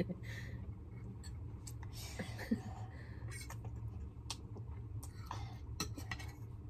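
A child quietly slurping fried noodles and chewing, with a few soft clicks of a metal fork against a plate, over a steady low hum.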